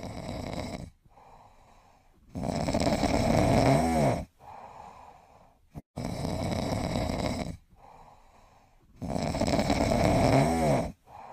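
Loud snoring in a steady rhythm: a long snore about every three and a half seconds, with a quieter breath in between.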